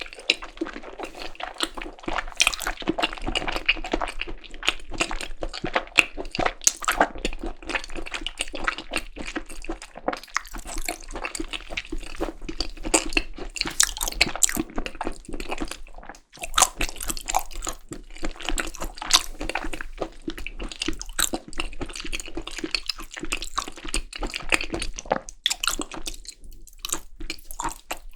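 Close-miked wet chewing of seasoned raw beef tartare (yukhoe): sticky, squishy mouth sounds and smacks, with two short pauses, one about halfway through and one near the end.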